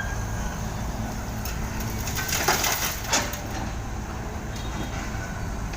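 Backhoe loader's diesel engine running with a steady low rumble, with a few short clattering bursts near the middle as its bucket loads material into a dump truck.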